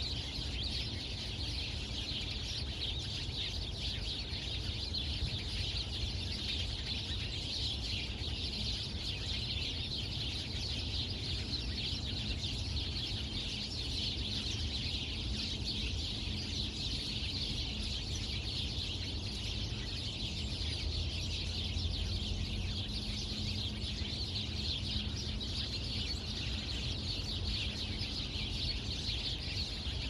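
Many birds chattering at once, their high chirps running together into a steady, unbroken din.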